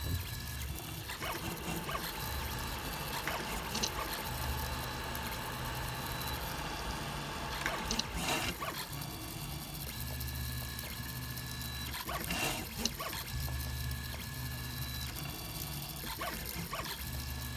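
Filament 3D printer mid-print: its stepper motors hum and whine in tones that change and switch on and off as the print head moves. Two brief knocks come about eight and twelve seconds in.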